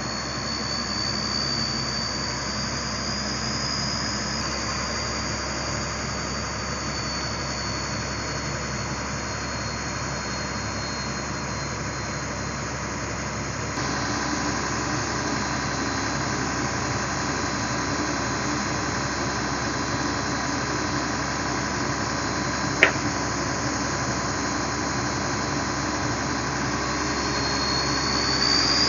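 Pindad excavator's diesel engine and hydraulics running steadily as it loads a Hino dump truck, with the truck's engine running alongside. A high whine rises and falls over the engine noise and climbs again near the end. One sharp knock comes a little after two-thirds through.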